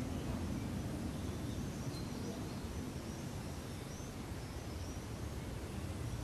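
Steady outdoor background noise with a low rumble, and faint, high, wavering bird chirps in the middle.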